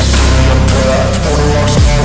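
Background music: an aggressive electronic rap track in a stretch without vocals, with a heavy sustained bass and a falling bass slide near the end.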